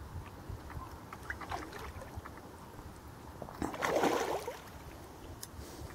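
A hooked carp splashing and thrashing at the water's surface about four seconds in, with fainter small water sounds before it.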